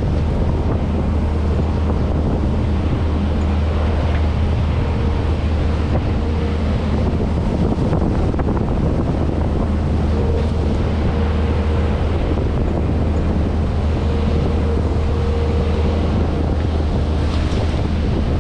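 Kubota SVL75-2 compact track loader's diesel engine running steadily under throttle, a constant low drone with a faint higher whine that comes and goes several times.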